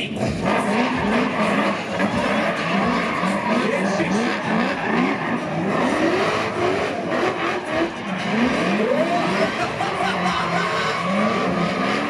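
Drift cars' engines revving hard in short rising sweeps, about two a second, with tyre squeal and skidding as the cars slide sideways on the asphalt.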